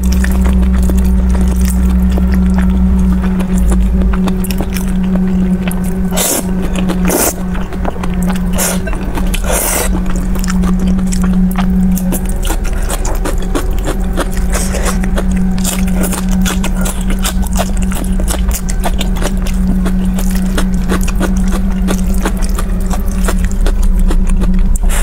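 Close-miked eating of spicy instant noodles: wet chewing, crunching and slurping, with sharp crunches about 6, 7 and 10 seconds in. A steady low hum runs underneath.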